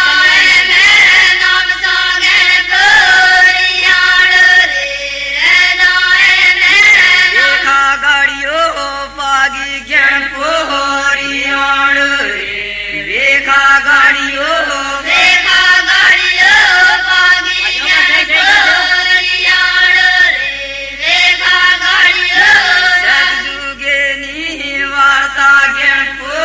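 A group of voices singing a devotional folk chant together, in phrases that break off and start again every few seconds.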